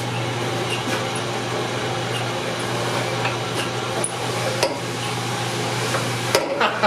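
A 1.5 hp Dayton electric motor runs steadily, driving a drop hammer's overhead belt drum, with a few light clicks along the way. The hum cuts off suddenly near the end.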